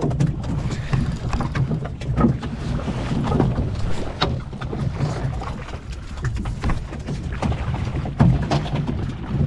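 A small fishing boat's motor runs steadily while trolling, under wind on the microphone. Scattered knocks and rubs come from the rod and reel being handled close by.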